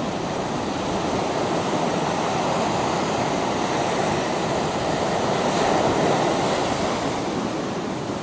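Pacific Ocean surf breaking on a sandy beach: a steady wash of waves that swells to its loudest about six seconds in.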